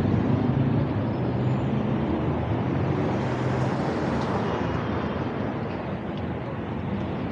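City street traffic: car engines running and tyres hissing as vehicles drive past on the avenue. An engine hum is strongest in the first four seconds, and a passing car swells about three to four seconds in.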